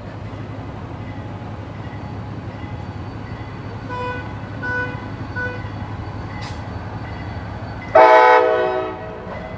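Railroad crossing signal bell dinging at an even pace over the steady low rumble of the passing train. About eight seconds in, a loud horn blast sounds for about a second and fades out.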